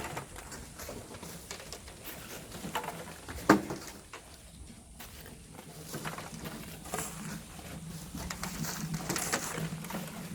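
Scattered scrapes and knocks of hand tools working volcanic sand and stones, with one sharp knock about three and a half seconds in. A low steady hum comes up about halfway through.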